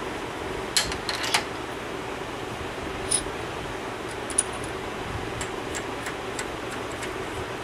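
Small metal clicks and clinks as a steel transfer punch is handled and fitted into a drill chuck, a few sharp ones about a second in and more around three and four seconds, over a steady low hum.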